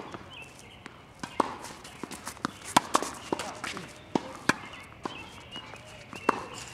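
Tennis rally on a hard court: sharp pops of the racket strings striking the ball and the ball bouncing off the court, one every second or so, with shoes scuffing and stepping on the court between shots.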